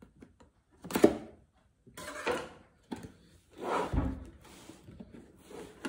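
A cardboard box being slit open with a kitchen knife and handled: scraping and rustling of cardboard, with a sharp loud scrape about a second in and a dull thump about four seconds in.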